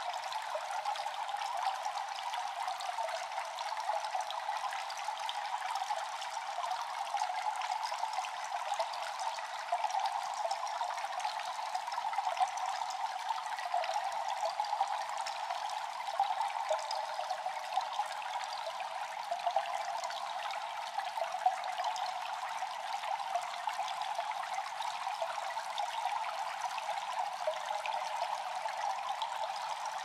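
A small stream of water pouring from a spout into a pool, a steady splashing trickle with no deep rumble.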